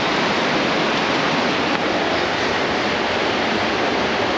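Yosemite Falls pounding down close by: a loud, steady rush of falling water.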